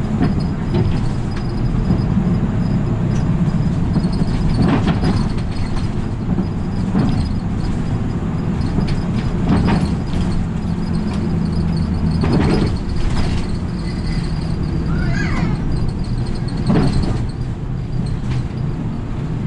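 City route bus's engine and road noise heard from inside the cab while driving, a steady low rumble with a faint steady high whine. Several short rattles or knocks come through it, and a brief squeak about two-thirds of the way in.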